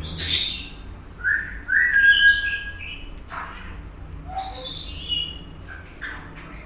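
A bird chirping and whistling: several short chirps, and a held whistled note about two seconds in that is the loudest sound.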